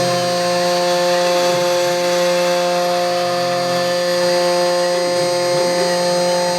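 CNC machine running while machining a miniature train wheel: a steady motor whine made of several held tones over a hiss, with faint slow rising and falling glides in pitch.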